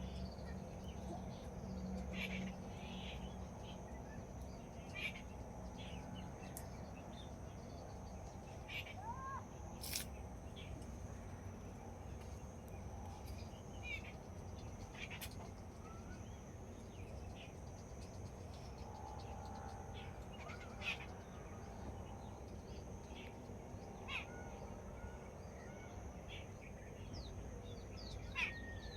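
Birds calling: scattered short chirps and quick rising and falling call notes, a few a second at most, over a steady low background noise and a thin steady high-pitched drone.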